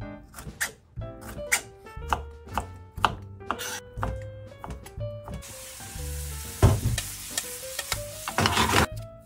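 A chef's knife chopping through diced red pepper and ham on a cutting board, about two strokes a second. From about five and a half seconds in, sizzling as the diced vegetables and ham are tipped into a hot frying pan, swelling louder near the end. Background music plays throughout.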